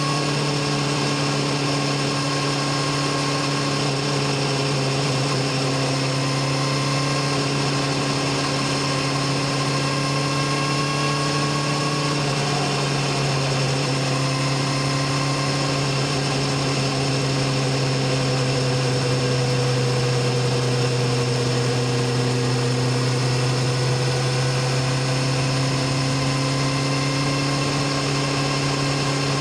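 BMW S1000RR sport bike's inline-four engine and exhaust running at a nearly steady engine speed while cruising, a constant pitched drone with only small drifts in pitch.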